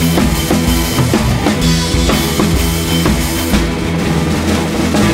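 Background music with a steady drum beat under held instrument notes.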